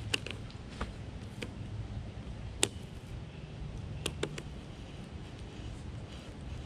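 Fishing rod and reel handling noise: a scattering of about seven sharp clicks and taps, the loudest about two and a half seconds in and two in quick succession around four seconds, over a steady low rumble.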